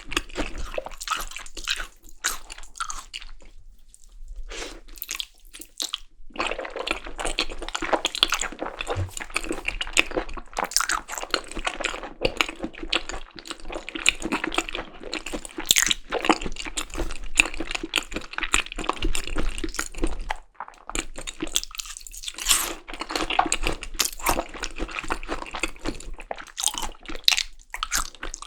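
Close-miked chewing of Korean raw beef tartare (yukhoe), wet clicking and smacking mouth sounds that go on almost without break, easing off briefly about four seconds in and again about twenty seconds in.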